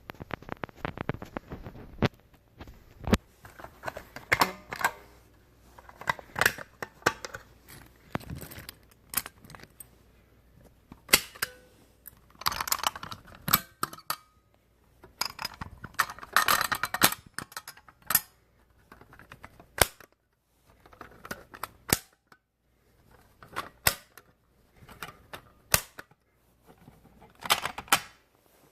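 Irregular clicks, knocks and rattles: a quick run of clicks at the start, short scraping bursts near the middle, and single sharp clicks about every two seconds toward the end.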